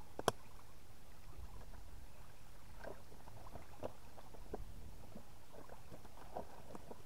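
River Wharfe in flood, running past the bank with faint, irregular lapping and gurgling over a low rumble. A single sharp click sounds just after the start.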